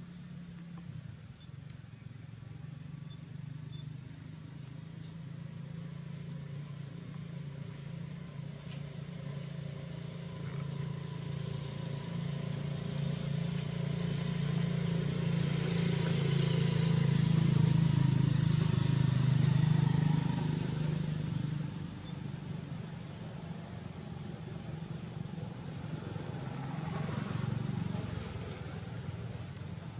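A motor vehicle's engine running as it goes by, growing louder to a peak a little past halfway, then dropping off suddenly. A second, weaker swell comes near the end, and a thin high whine sets in after the peak.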